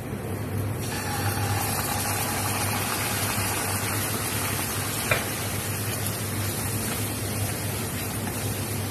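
Coconut milk sizzling steadily in a hot frying pan of curry paste and spices from about a second in, stirred with a wooden spatula, with one sharp tap about five seconds in. A low steady hum runs underneath.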